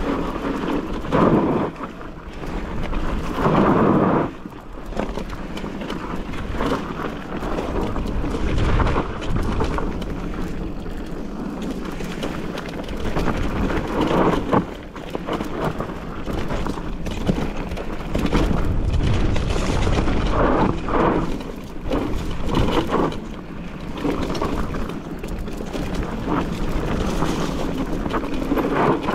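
Mountain bike riding over rough trail, heard through a mounted camera: a steady rumble of wind on the microphone with louder gusts and the clatter of the bike over the ground.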